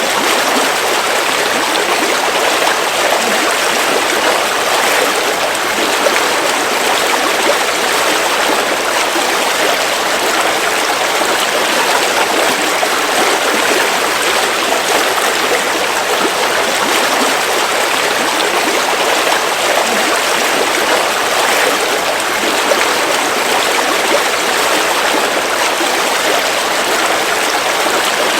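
River water flowing over rocks, a steady rushing with no letup.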